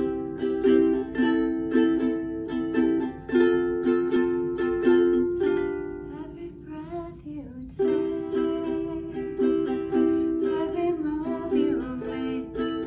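Makala ukulele strummed in a steady rhythm through the intro chords C, Am, F and G7 in an island strum pattern. About halfway through, one chord is left ringing for about two seconds before the strumming starts again.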